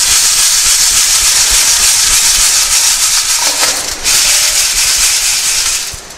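Crushed stone aggregate rattling and grinding in a stack of metal test sieves shaken by hand, a dense steady rattle with a brief break about four seconds in and a fade near the end. The chips are being sieved to keep the fraction passing 12.5 mm and retained on 10 mm.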